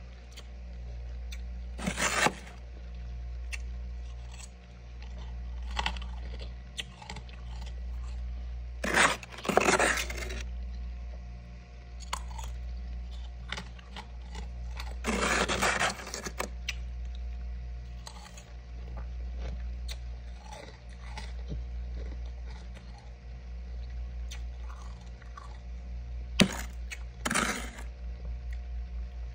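Crunching of packed freezer frost in short bursts, about four times with long gaps between, over a steady low hum.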